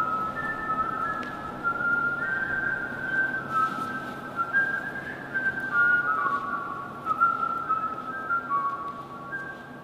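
A person whistling a slow melody, one clear note at a time, each held for about half a second to a second and moving up and down in small steps.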